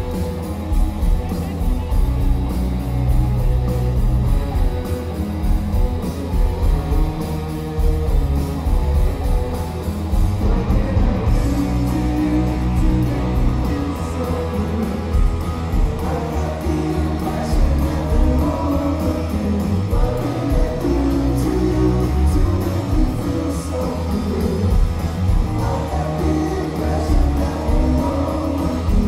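Live rock band playing loud through a venue's PA, heard from within the crowd: electric guitars, bass and drums, with a voice singing over them.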